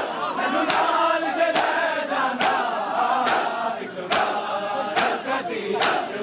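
Many men chanting a noha in unison while beating their chests together in matam: a sharp, loud slap of hands on bare chests lands in time with the chant, a little faster than once a second.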